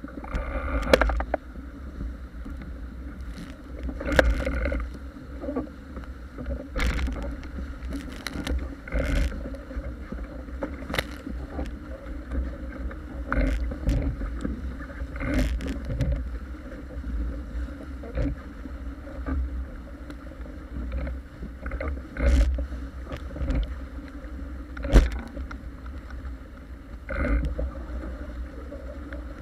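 Paper Tiger catamaran hull planing fast through chop: water rushing and spraying along the hull, with irregular thuds and splashes every second or two as the hull slams into waves over a low steady rumble.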